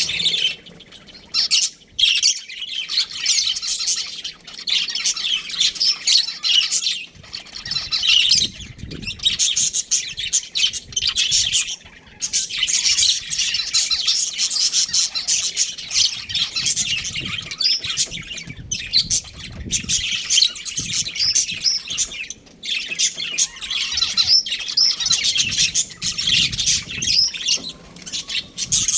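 Budgerigars chattering, a busy high-pitched warble of chirps and squawks with only brief pauses.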